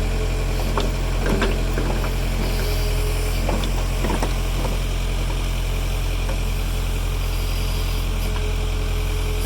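Backhoe's diesel engine running steadily, with a few faint knocks in the first half.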